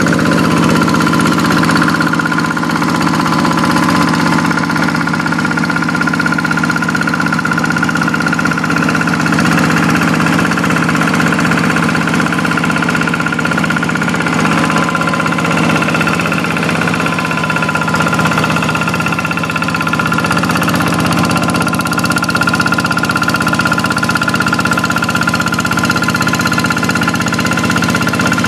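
Single-cylinder Kubota diesel engine of a Quick hand tractor running steadily while plowing.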